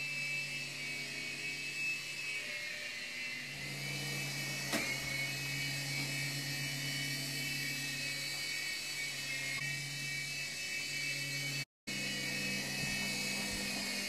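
FQ777 Explore 610 coaxial toy RC helicopter in flight: its small electric motors and spinning rotors give a steady high whine over a low hum. The sound drops out for a split second near the end.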